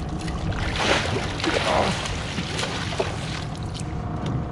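Boat motor running steadily at trolling speed, with a burst of splashing about a second in as a hooked Chinook salmon thrashes at the surface beside the boat.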